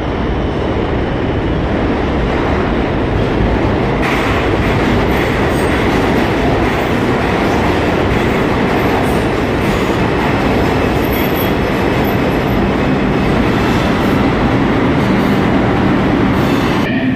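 New York City subway train pulling into an underground station: a continuous rumble of wheels on rails that grows brighter and louder about four seconds in, with faint high wheel squeals, before the train comes to a stop near the end.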